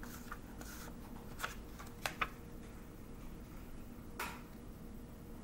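Faint handling of paper flash cards: a few soft clicks and a brief rustle over quiet room tone.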